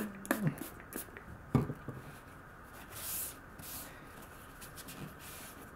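Faint rubbing as a cloth wipes the face of a 1000-grit waterstone, with a single short knock about a second and a half in.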